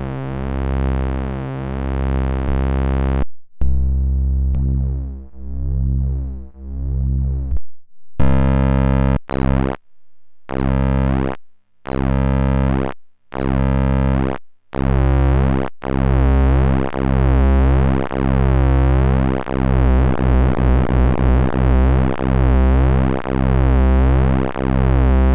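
Mutuca FM analog synthesizer playing low, buzzy bass notes with its two oscillators. It starts with long held notes, plays a run of short notes with silent gaps through the middle, and ends on held tones with a fast wobble.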